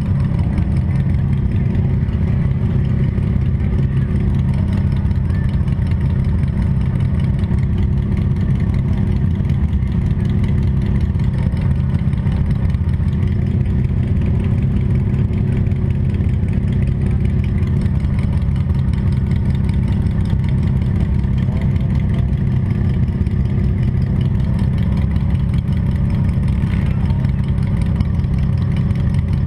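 Demolition derby car's engine running steadily and loudly, its sound sitting low in pitch.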